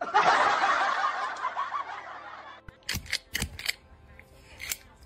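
A person snickering with laughter for about two and a half seconds, fading out; then a few sharp taps or knocks.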